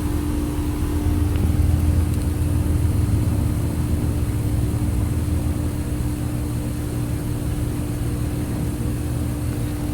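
Bryant heat pump outdoor unit running in cooling, its compressor and fan giving a steady hum with one constant tone. It is low on refrigerant, with the suction pressure sinking toward the low-pressure cutout.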